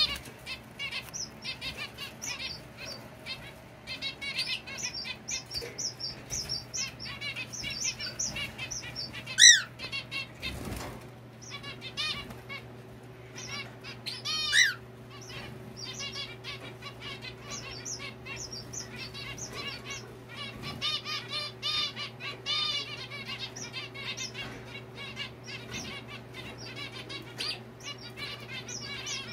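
Several zebra finches calling, a dense, continuous chatter of short repeated calls, with two louder calls about a third and halfway through.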